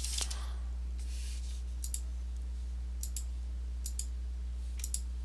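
Computer mouse clicking a few times, single sharp clicks about a second apart, over a steady low hum.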